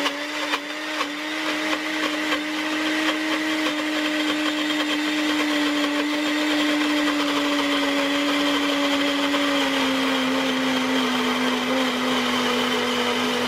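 NutriBullet 900 Series blender motor running flat out as it blends spinach, pine nuts and olive oil into pesto. A steady whine spins up at the start, drops slightly in pitch about ten seconds in, and starts to wind down at the very end.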